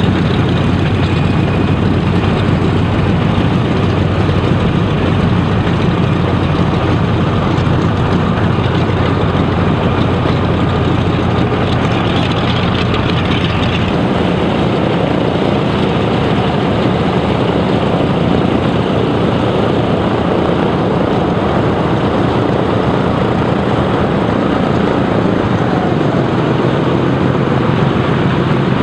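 Douglas DC-3's twin radial piston engines running steadily at low power, propellers turning. About halfway through, the deepest part of the rumble falls away and the tone shifts.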